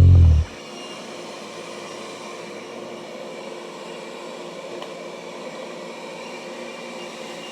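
Robot vacuum cleaner running: a steady mechanical whir with faint steady tones, right after a short music cue that stops about half a second in.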